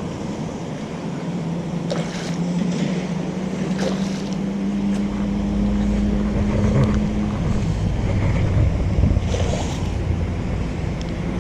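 Wind rumbling on the microphone, with a steady motor hum that rises slightly in pitch and stops about seven seconds in, and a few light clicks.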